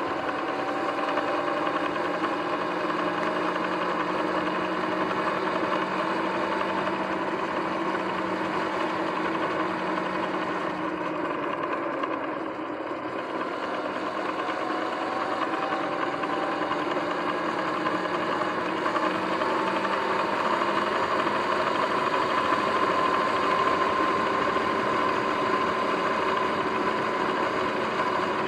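Sur-Ron X electric dirt bike on the move: its motor whine and chain drive, over tyre and wind noise. The whine drops and the sound softens as the bike slows about twelve seconds in, then climbs steadily in pitch as it speeds up again.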